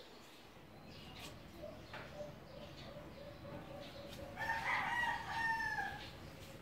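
A rooster crowing once, about four seconds in: one long call of nearly two seconds that drops in pitch at the end.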